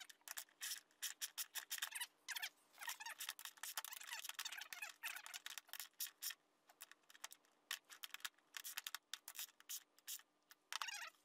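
Hand ratchet clicking in quick runs with short pauses as the screws holding a caster plate are tightened into the plywood crate bottom.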